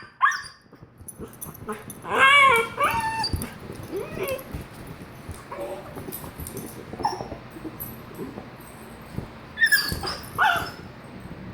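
Puppy giving a string of short high-pitched cries, the loudest about two seconds in and two sharp ones near the end.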